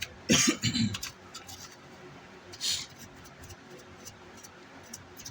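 A man coughs, clearing his throat, about half a second in, then a short breathy hiss near the middle. Scattered faint light clicks follow.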